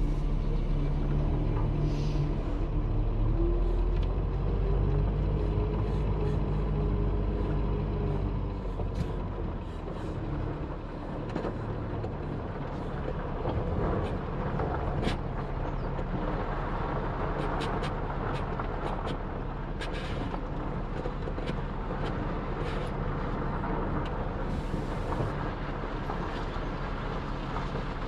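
Scania R580 truck's V8 diesel engine running under way, its note rising over the first several seconds and then settling. The rest is rougher running with scattered ticks and knocks, and a brief hiss near the end.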